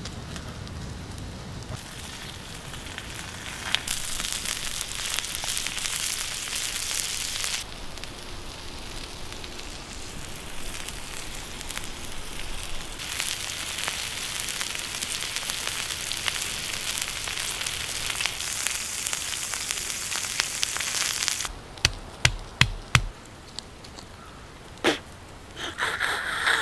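Meat frying on a hot stone over a fire: a steady hissing sizzle with crackles, changing abruptly several times as if shots were cut together. Near the end the sizzle gives way to a quieter stretch with a few sharp knocks.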